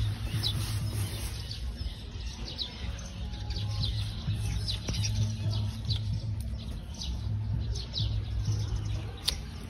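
Frogs calling: a low droning hum that comes and goes in bouts of one to two seconds, over many short, high, falling chirps.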